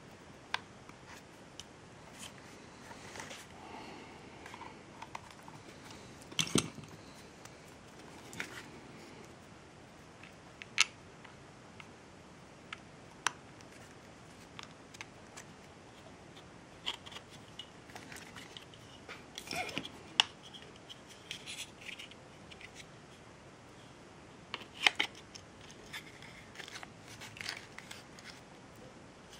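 Irregular sharp clicks and taps of small plastic parts being handled, a dozen or so spread out with quiet between them: the plastic housing of an LED inspection lamp being worked on and snapped closed.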